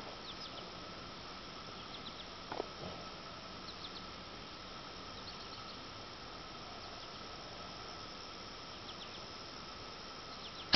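Quiet outdoor background: a steady hiss with faint high chirps recurring in small clusters every second or so. There is one faint knock about two and a half seconds in.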